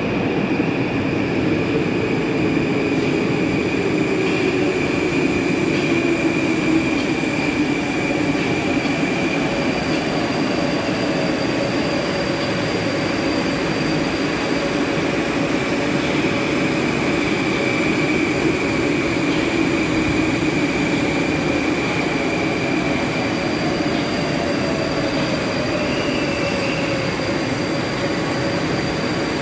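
Moscow metro Moskva-2020 (81-775/776/777) train pulling into the station, a steady running rumble with a motor whine that slowly slides in pitch.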